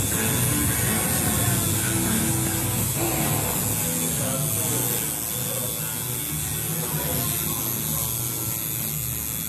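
Electric tattoo machine buzzing steadily as the needle works the skin of a man's belly, easing a little about five seconds in.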